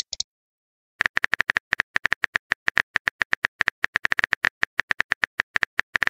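Keyboard-typing sound effect of a texting app: a rapid run of short, evenly spaced key clicks, about eight a second, starting about a second in as a message is typed out letter by letter. A brief high blip sounds at the very start.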